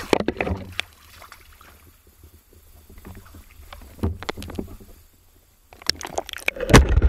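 Water sloshing and splashing around a camera as it dips in and out of shallow water among reeds, with scattered sharp knocks and scrapes. The loudest splash comes near the end.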